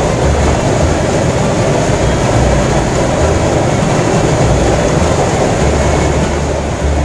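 Fast-flowing water rushing steadily along a concrete irrigation canal, with an uneven low rumble underneath.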